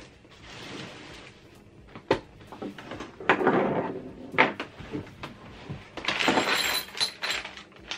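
A few sharp knocks and clunks with rustling as the wooden sofa-bed frame and its parts are handled during assembly.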